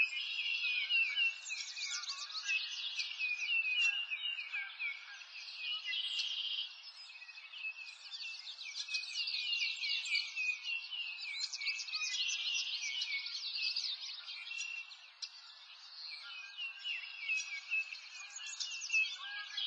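Dense chorus of birds chirping and trilling, with many overlapping high calls, softening briefly about fifteen seconds in.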